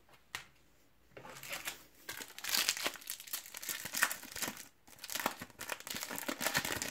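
A Topps Match Attax booster pack's wrapper being crinkled and torn open by hand: a dense run of crackling that starts about a second in, with a short pause near the middle.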